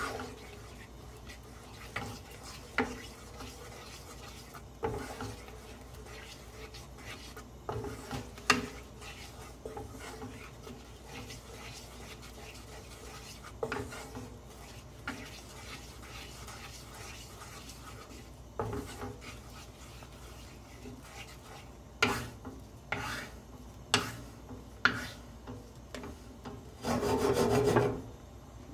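Wooden spatula stirring and scraping thick tomato sauce around a nonstick pan, with scattered sharp knocks of the spatula against the pan. A louder clatter of about a second comes near the end.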